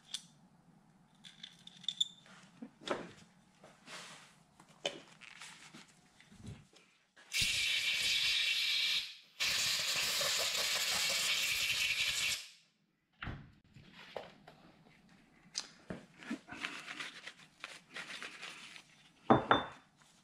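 Compressed-air blow gun on a coiled air hose blowing out oil pump parts: two long, even blasts of hiss, about two and three seconds long with a short break between, starting about seven seconds in. Before and after, light clicks and scrapes of small metal parts being handled.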